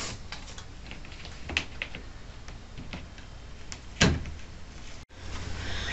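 A few sharp knocks and clicks: a light one about a second and a half in and a louder one about four seconds in, over a faint steady hum.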